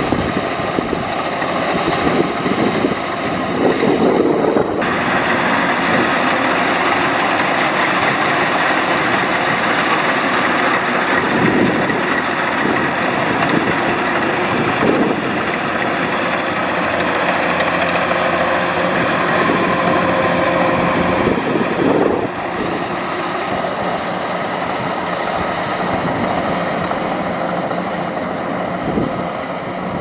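Kubota DC-105X combine harvester running while it harvests rice, a steady engine and machinery drone. The sound changes abruptly about five seconds in and again about 22 seconds in.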